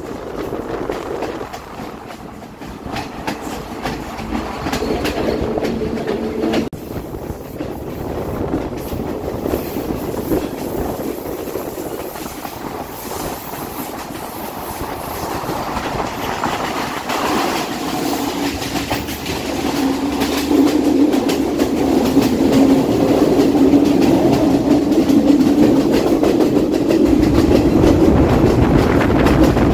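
Passenger train running along the track, heard from an open carriage doorway: the wheels clatter over the rails. A steady hum grows louder over the last ten seconds or so.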